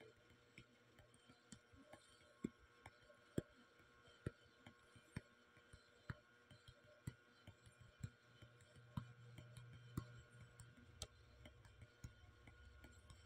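Faint fingertip taps on a phone touchscreen: short, sharp clicks, the stronger ones about once a second with lighter ones between.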